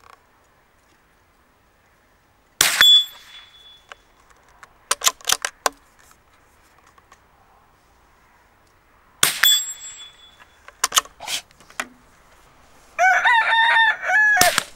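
Two shots from a .22 LR bolt-action rifle, each followed by the steel target plate ringing briefly, and a second or two later by a few quick clicks of the bolt being worked. Near the end a rooster crows once, cut off by another sharp crack.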